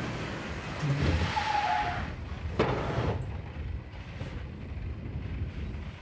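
Articulated tipper truck braking to a stop under full braking: a rush of brake and tyre noise fades over the first two seconds, with a brief squeal. A single knock comes about two and a half seconds in, then a low steady rumble.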